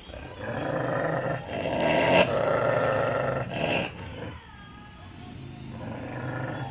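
Dog growling at another dog in long, rough stretches, easing off after about four seconds: a tense warning growl between dogs that keep fighting.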